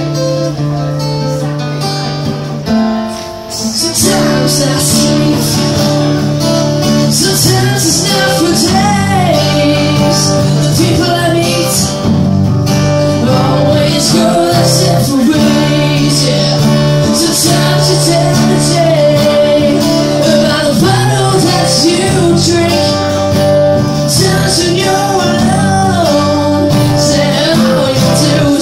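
Live acoustic guitar strummed in chords, with a voice singing into a microphone over it. The guitar plays alone at first, dips briefly about three seconds in, and the singing comes in about a second later and carries on over the strumming.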